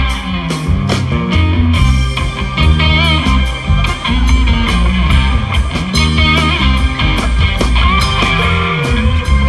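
Live rock band playing: electric guitars over bass guitar and a drum kit, with a steady beat.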